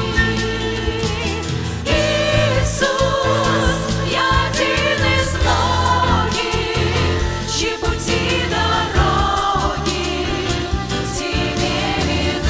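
Church praise band playing with a group of voices singing together in sustained, wavering lines over a steady bass accompaniment.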